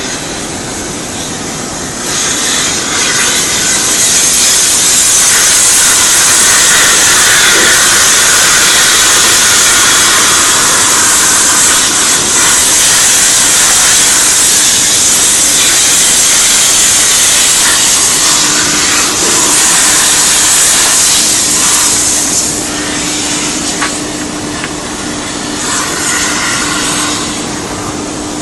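Compressed-air lance blasting with a loud, steady hiss that swells about two seconds in and eases back to a lower hiss after about twenty seconds.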